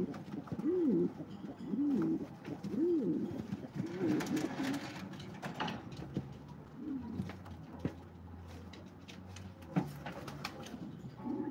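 Domestic pigeons cooing in the loft: a run of short coos that rise and fall in pitch, about one a second in the first half, then fewer and fainter ones later.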